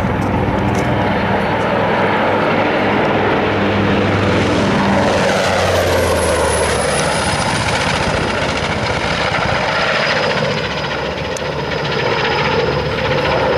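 NH90 helicopter's turbine whining steadily on the ground, a loud rumble under it, while the rotor blades stand still. About five seconds in a high whine rises in pitch and then holds steady.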